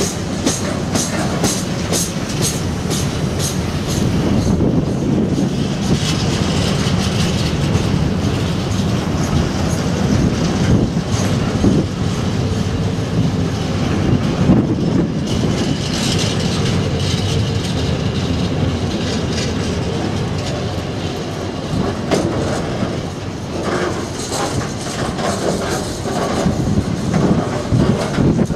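Container wagons of an intermodal freight train rolling past close by: a steady heavy rumble with the clickety-clack of wheels over rail joints, the clicks coming thick and fast in the first few seconds.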